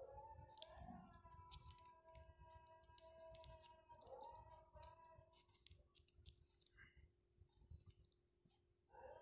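Faint, scattered clicks and taps of a hard plastic fitness band and its charging cable being handled and turned over in the fingers. Soft held tones change pitch a few times underneath.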